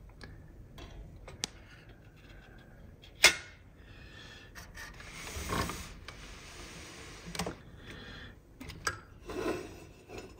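Handling of an opened metal instrument chassis on a workbench: scattered light clicks and knocks, one sharp click about three seconds in, and rubbing scrapes around the middle and near the end.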